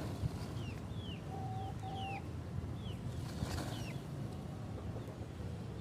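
Birds chirping: a run of short, high chirps, each sliding downward, several a second, with two brief lower notes about a second and a half in and a short rustle around the middle.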